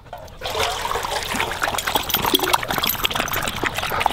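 Labrador retrievers lapping water from a bowl: quick, irregular wet laps and splashes, starting about half a second in.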